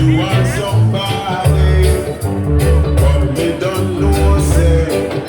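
Reggae music played loud from a DJ's records over a sound system: a heavy, pulsing bass line under a singing voice.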